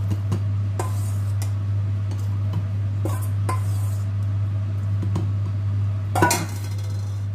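A metal ladle clinking and scraping against a stainless steel mixing bowl as soaked cashew nuts are scooped into a blender jar, in scattered knocks with one louder clank a little after six seconds. A steady low hum runs underneath.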